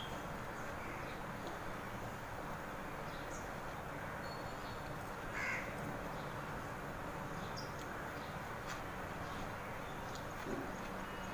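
Steady background hiss with a single faint crow caw about halfway through.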